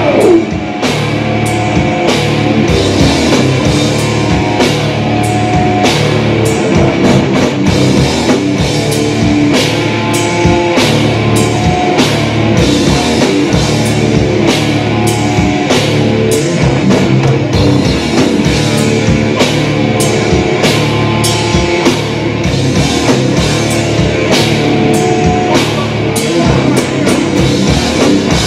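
A heavy metal band plays an instrumental passage loud and live: distorted electric guitars and bass over a drum kit with busy, hard-hit drumming. It opens with a note sliding steeply down in pitch.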